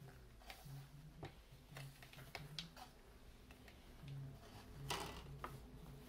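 Faint handling noise: scattered light clicks and crinkles of a crumpled paper towel being handled at a whiteboard, with one slightly louder rustle about five seconds in.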